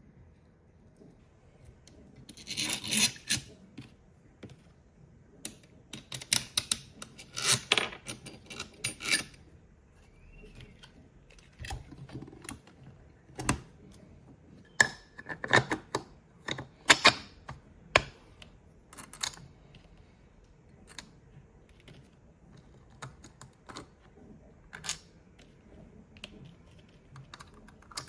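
Small metal parts being handled: irregular clinks, clicks and rattles that come in clusters with quieter gaps between.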